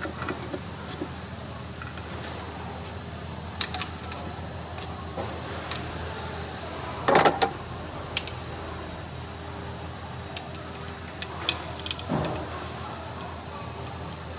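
Scattered metallic clicks and clinks of hand tools and bolts being worked at a car's automatic transmission oil pan, with a louder clatter about seven seconds in and a single knock near twelve seconds.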